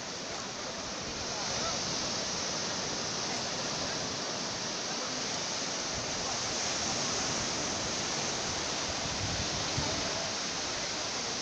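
Ocean surf: small waves breaking and washing up the beach in a steady rush, swelling a little about two seconds in.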